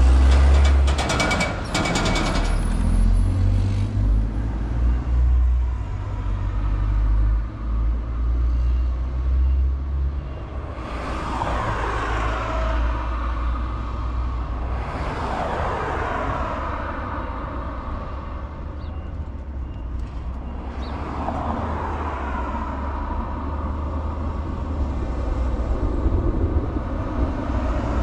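Wind rushing and buffeting over the camera microphone on a moving electric motorcycle, heaviest in the first few seconds. Three vehicles pass close by, each a swelling rush that drops in pitch, about 11, 15 and 21 seconds in.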